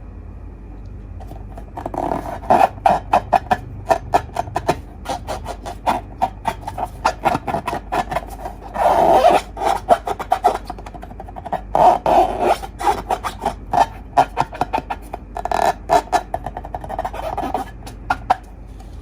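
Slime being squished and worked by hand: rapid, irregular sticky clicks and pops, with a few longer squelching stretches about nine, twelve and sixteen seconds in.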